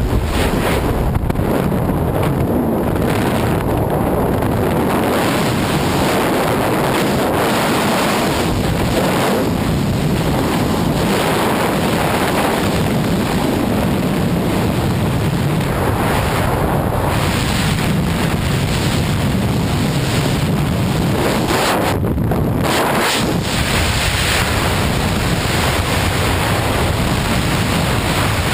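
Loud, steady rush of freefall wind battering the camera microphone during a tandem skydive.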